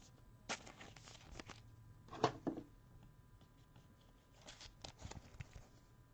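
Trading cards and plastic top loaders being handled: a few faint rustles and light clicks, the loudest about two seconds in.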